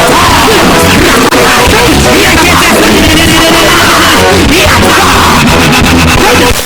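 Loud live church band music with voices shouting and praying aloud over it during congregational prayer. The sound is very loud and overdriven throughout.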